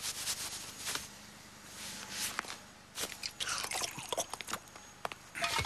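Cartoon sound effects of a drink can being handled and drunk from: scattered clicks and short hissing bursts, with a louder burst of drinking noise near the end.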